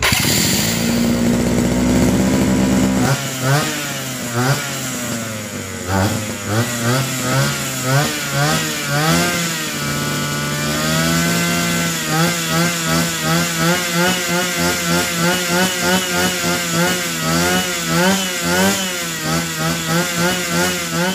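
Small two-stroke brush-cutter engine with an electric starter, cranked by the starter for about three seconds, then catching and revving up and down over and over. It holds steady for a moment about ten seconds in, then is blipped about once a second.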